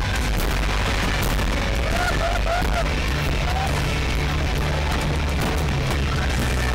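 Fireworks shells bursting and crackling in quick succession over music playing.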